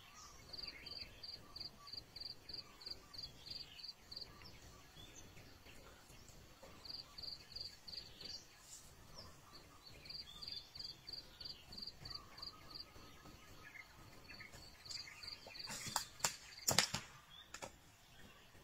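Insect chirping outdoors: a high, even-pitched chirp repeated about four times a second in bouts, with a few sharp snaps near the end.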